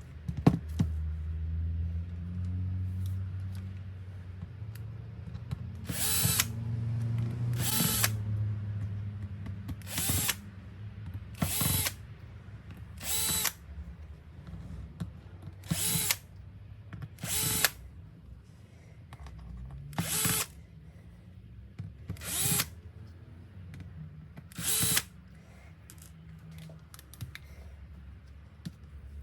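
Small electric screwdriver whirring in short bursts, about ten times a couple of seconds apart, driving out laptop case screws one after another. A low hum runs underneath.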